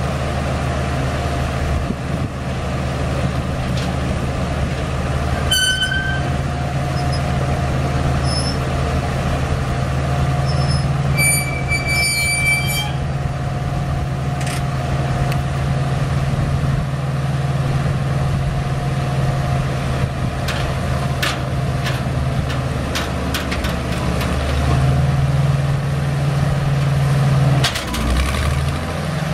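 Bantam truck crane's six-cylinder gasoline engine running steadily as the cable-hoisted boom is lowered, with a steady higher whine alongside for much of the time and a few short high squeals. The engine note goes up about 25 seconds in and drops again just before the end.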